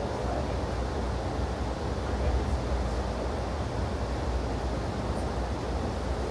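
Steady rumbling, rushing noise of an Amtrak passenger train in motion, heard from on board.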